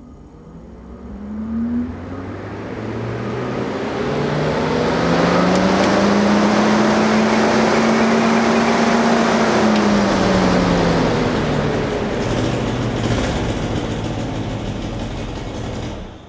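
The motor of a scrap-built car winds up over several seconds to a high steady tone, holds there, then winds back down to a lower steady run, with a strong rushing noise throughout.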